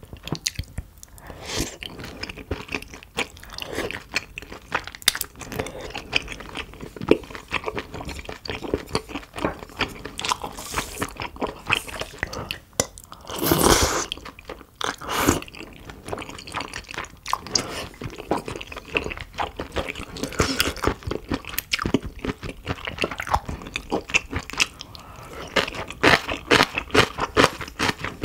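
Close-miked chewing and biting of nakgopsae, a spicy octopus, beef tripe and shrimp stew: a dense run of small wet clicks and crunches. About halfway through there is a louder, longer rush of sound, with a shorter one just after it.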